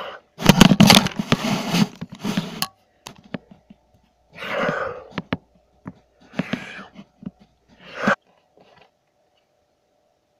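A person making loud, rasping vocal noises right up against the microphone, in four separate bursts: the first is the longest, about two seconds, and the others are shorter. Scattered clicks and knocks from the handheld device come between the bursts.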